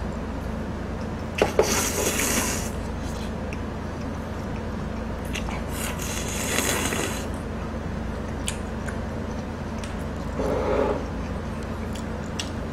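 Close-miked eating sounds: two loud slurps about two and six and a half seconds in, a couple of sharp utensil clicks, and chewing, over a steady low hum.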